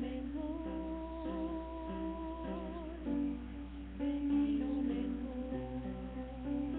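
A woman singing a hymn over plucked guitar accompaniment. About half a second in she holds one long wavering note for over two seconds. A steady low electrical hum runs underneath.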